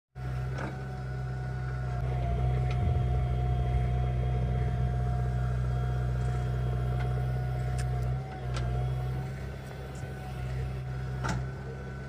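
JCB 3DX backhoe loader's diesel engine running steadily under load, with a steady whine over it as the backhoe arm digs, swings and dumps soil. A few sharp clicks and knocks come now and then, and the engine eases off briefly about eight seconds in.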